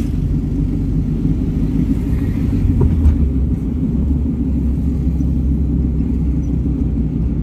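Steady low engine and road rumble of a moving vehicle, heard from inside its cabin; the deep hum grows stronger about three seconds in.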